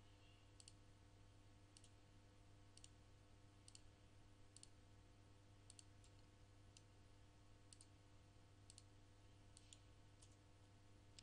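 Faint computer mouse clicks, about one a second, over a low steady electrical hum.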